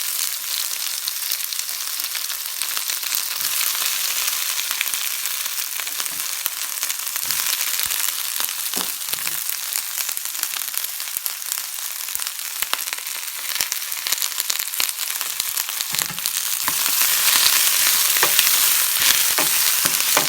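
Chopped onion and garlic frying in hot olive oil in a pan: a steady, loud sizzle scattered with short clicks and crackles. The sizzle swells louder about three-quarters of the way through.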